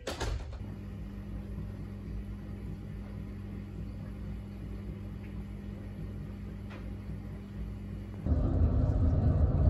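Steady low mechanical hum and rumble with a faint high whine, stepping up sharply in loudness about eight seconds in.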